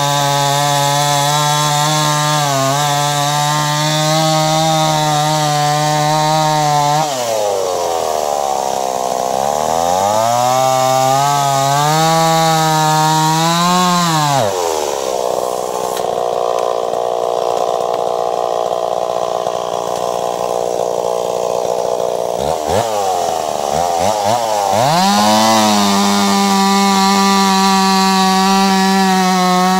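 Ported Stihl 026 two-stroke chainsaw cutting through a silver maple log at high speed. About seven seconds in, its pitch sags and wavers as the chain loads in the wood. The engine speed then falls away for several seconds and climbs back to full speed near the end.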